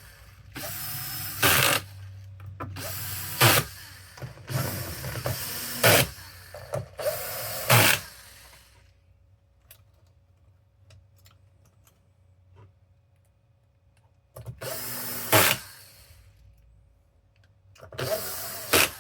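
Small electric screwdriver driving the console's case screws in about six short runs of roughly a second each, each ending in a sharp click as the screw seats and the tool slips in the hand instead of over-torquing. There is a quiet gap of several seconds between the fourth and fifth runs.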